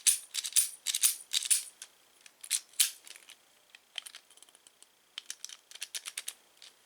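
Small metal door-hardware parts clicking and rattling as they are handled, a quick string of sharp light clicks, dense for the first three seconds and sparser after a short pause.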